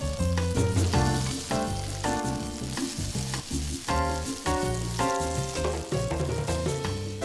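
Courgette fritters sizzling as they fry in olive oil in a pan, with background music playing over the sizzle.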